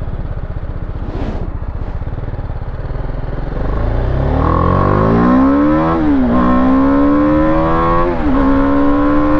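BMW G310R's single-cylinder engine accelerating hard: after a few seconds at lower revs the pitch climbs steeply, drops at an upshift about six seconds in, climbs again, and drops at a second upshift about eight seconds in.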